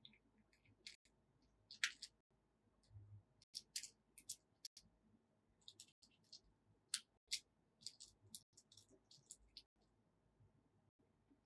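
Faint, irregular clicking of small plastic beads as letter beads are picked out of a compartmented plastic bead box and threaded onto elastic cord.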